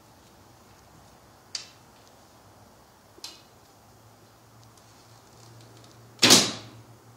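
Hoyt Buffalo recurve bow shot indoors: two light clicks as the arrow is handled and nocked, then about six seconds in the string is released with one loud, sharp snap that dies away quickly. The bow is set at its optimal brace height, tuned for least string noise, with no string silencers (Beaver Balls) fitted.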